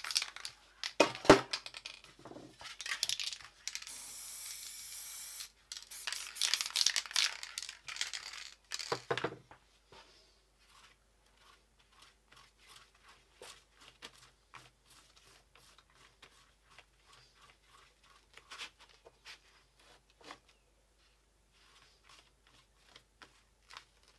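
Paper crinkling and tearing against a spray-painted canvas, with a sharp knock about a second in and a steady spray-can hiss of about a second and a half a few seconds in. After about ten seconds only faint scattered taps of handling remain.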